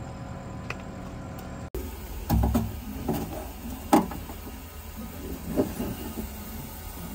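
Boat refrigerator compressor humming steadily. After a cut, several knocks and clunks from a hand handling the plastic fridge box, the loudest about four seconds in, over a low hum.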